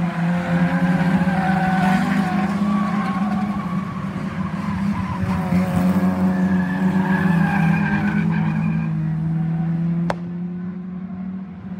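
Several Pro Rods race cars' engines running hard round the oval, their pitch rising and falling as they are driven through the bends, with tyres skidding on the tarmac. A sharp click about ten seconds in, after which it is quieter.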